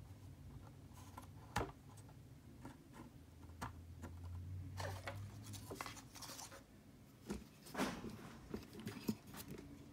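Plastic quick-release drone propellers handled and pushed and twisted onto a DJI Mavic 2 Pro's motor mounts: scattered light clicks and short scrapes of plastic.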